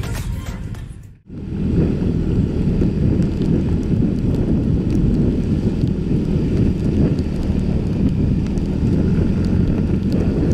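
Music fades out for about a second, then gives way to steady wind buffeting the microphone on a moving motor scooter, with the scooter's engine running underneath.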